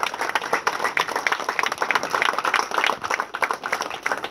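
A small crowd applauding, many hands clapping irregularly and steadily.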